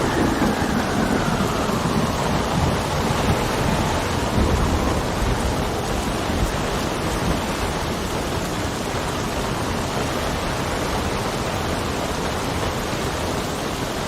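Steady heavy rain, with low thunder rumbling through the first half that then dies away, leaving an even rain noise.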